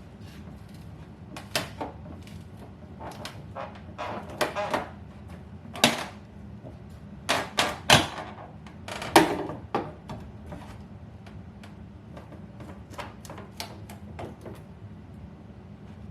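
Irregular knocks, clunks and rattles of demolition work on kitchen cabinets and walls: a dozen or so sharp impacts at uneven intervals, the loudest clustered near the middle. A steady low hum runs underneath.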